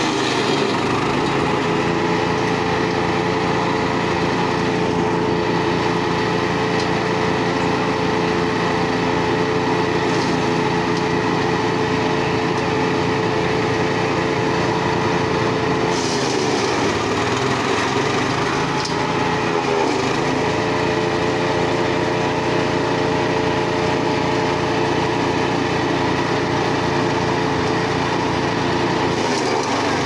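AGRIDON 14 hp wood chipper's engine running steadily at high speed while dry stalks are chipped. About sixteen seconds in, the engine pitch drops under load as a bundle is fed into the hopper, then picks back up about four seconds later. A shorter dip comes near the end.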